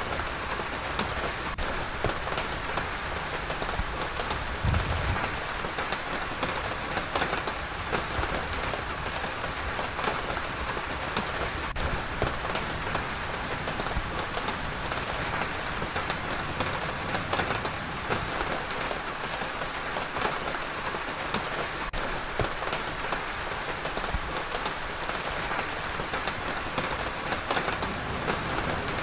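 Steady rain with a dense patter of drops hitting hard surfaces, and a brief low thud about five seconds in.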